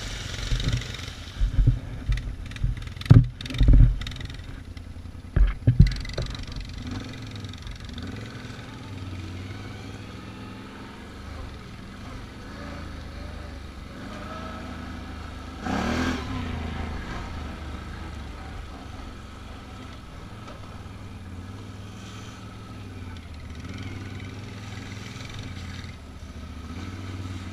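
Can-Am Outlander ATV engine running on a rough dirt trail, heard from on board. A few sharp knocks and clatter come in the first six seconds, and a brief louder swell comes about halfway through.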